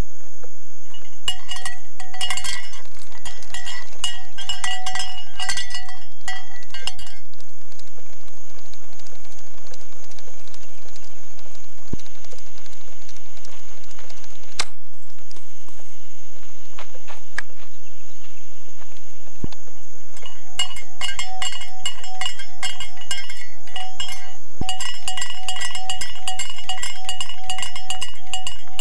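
A hand cowbell clipped to a running Holmes stand fan's head clanking in rapid, ringing strikes, in two spells: from about a second in to about seven seconds, and again from about twenty seconds on.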